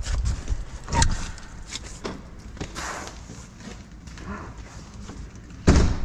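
Irregular footsteps and knocks from someone walking through a glass patio door, with one louder thump near the end.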